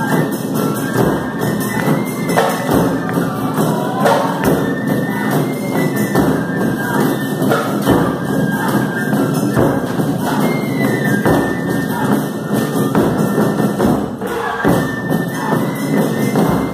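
Live Japanese taiko drum ensemble playing, many drums struck together in a fast, steady rhythm.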